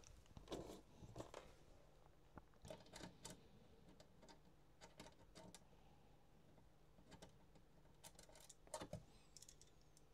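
Faint, scattered small clicks and scrapes of a screwdriver and screws against a MiniDisc deck's rear panel as the screws are driven back in.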